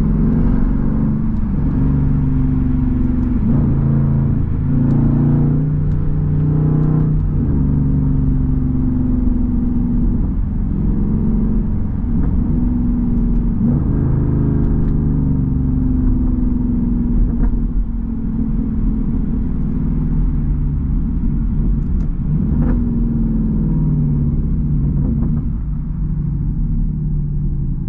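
Straight-piped V8 exhaust of a Jeep Grand Cherokee SRT heard from inside the cabin, running through several pitch steps like gear changes in the first half, then settling to a steadier, slightly quieter drone in the second half.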